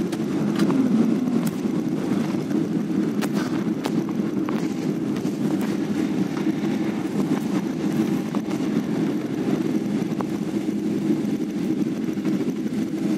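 Inside an airliner cabin as the jet rolls along the runway after landing: a steady rumble of engines, airflow and wheels, with a few scattered light clicks.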